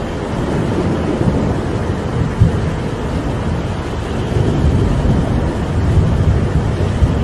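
Rain and wind: a steady noise with a deep low rumble underneath that grows louder in the second half.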